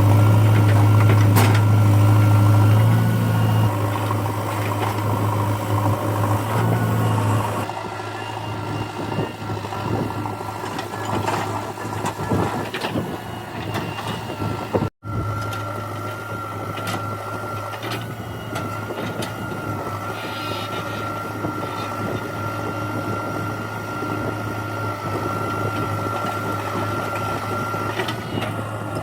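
Backhoe loader's diesel engine running with a steady hum. It is loud for the first few seconds and eases off at about seven seconds. Scattered knocks come in the middle, with a brief break in the sound about halfway.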